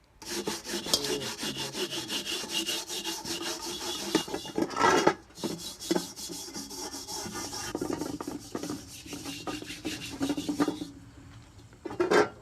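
Steel wool scouring ball scrubbing an iron wok in rapid back-and-forth strokes, scraping off burnt-on grease and carbon that has been loosened by burning the wok. The scrubbing breaks briefly near the middle, with a few louder knocks, and stops about a second before the end.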